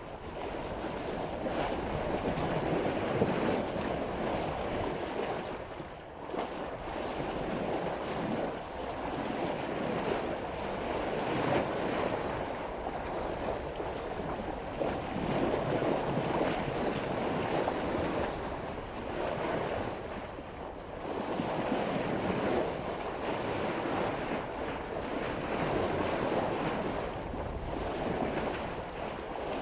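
Seawater rushing and splashing along a sailboat's bow as it cuts through waves at about 5 knots, swelling and easing every few seconds with the swell, with wind buffeting the microphone.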